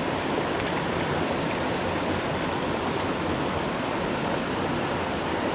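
Mountain headwater stream rushing steadily over rocks and a small cascade.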